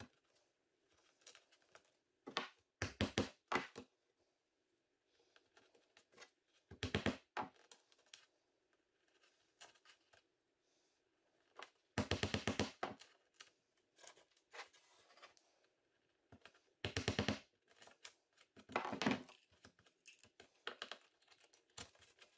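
Wooden toothpicks wedged into a stripped hinge screw hole in a cabinet door: five or six short bursts of crackling and tapping as they are driven in with a small hammer and snapped off.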